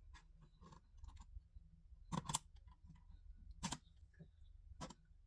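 Smoke alarm handled for a battery change: a few sharp clicks and snaps, a close pair about two seconds in, then single ones near the middle and near the end.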